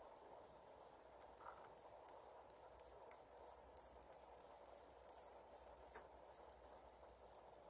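Near silence: faint outdoor background hiss with a few soft ticks.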